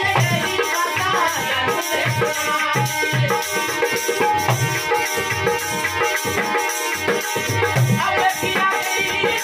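Marwari folk accompaniment played live: a harmonium holding steady notes, a rope-tuned dholak struck by hand in a regular beat, and a hand tambourine jingling along.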